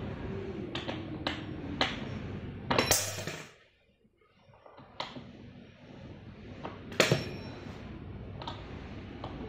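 Hard plastic and metal chair parts being handled and fitted during assembly: scattered sharp clicks and knocks, with the loudest clacks about three seconds in and again about seven seconds in.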